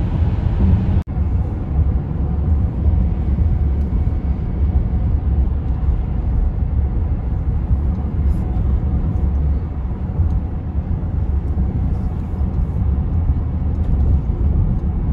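Steady low road rumble inside a moving car, with tyre and engine noise, briefly cut off about a second in.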